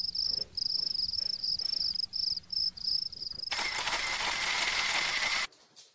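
Cricket chirping in a run of short, evenly repeated high trills. About three and a half seconds in, a loud hiss takes over, then cuts off abruptly about two seconds later.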